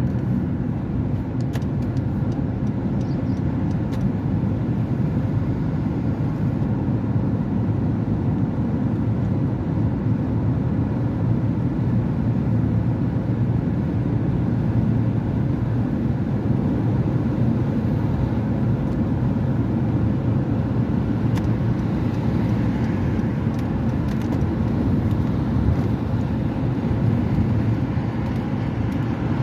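Steady low rumble of a car on the road, engine and tyre noise, holding an even level throughout.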